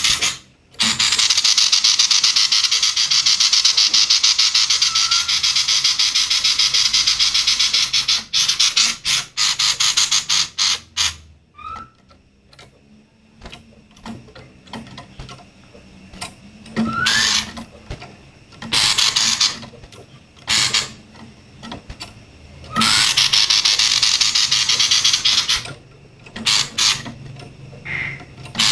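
Female common iora (sirtu) giving harsh, rapid rattling 'konslet' calls that sound like a kingfisher's. One long rattle runs about seven seconds near the start, then shorter bursts follow with brief pauses between them.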